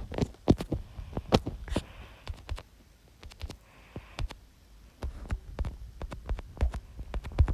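A string of irregular knocks and thumps, with a quieter stretch about three to five seconds in.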